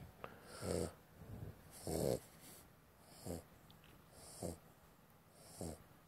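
Sleeping puppy snoring and snorting softly, five short breaths about a second apart.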